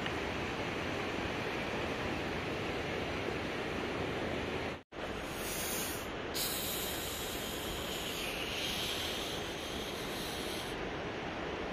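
Steady outdoor rushing noise. It drops out for an instant about five seconds in, and a hissier layer sits on top for several seconds after that.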